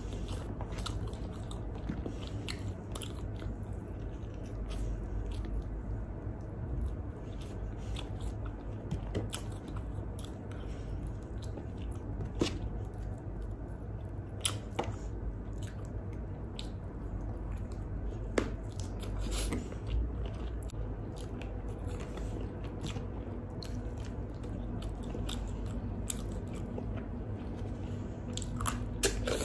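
Close-miked chewing of grilled chicken: soft wet mouth sounds with many short clicks as pieces of meat are bitten and chewed, with a cluster of sharper clicks near the end.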